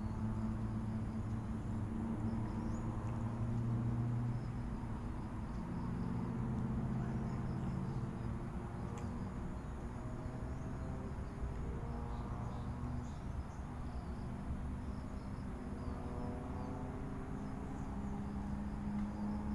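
Outdoor ambience dominated by a steady low engine-like hum whose pitch drifts slowly up and down, with faint insect and bird chirps above it.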